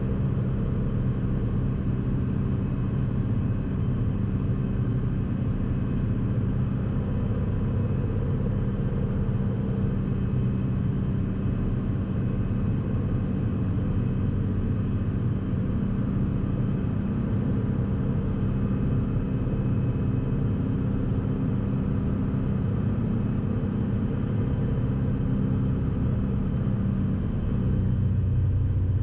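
Piper PA-46 Malibu's piston engine and propeller droning steadily at low power during the landing. Near the end the pitch shifts and the drone grows a little louder.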